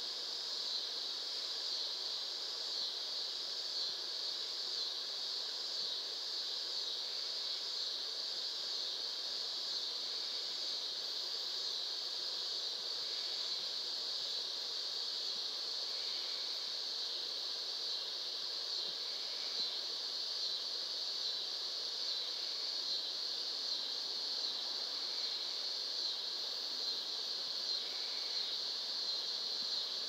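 Hampton Bay St Claire ceiling fan running steadily, a high, even hiss-like whine. A faint short chirp recurs about every three seconds.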